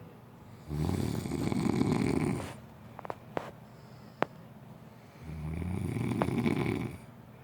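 A person snoring: two long snores, each lasting almost two seconds, about four and a half seconds apart, with a few faint clicks in the pause between them.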